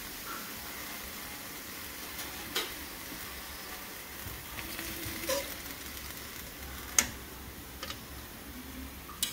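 A metal fork clinking a few times against the inside of an open aluminium pressure cooker of curry goat, the loudest clink about seven seconds in, over a steady faint hiss. The meat is being prodded to test it and is not yet tender enough.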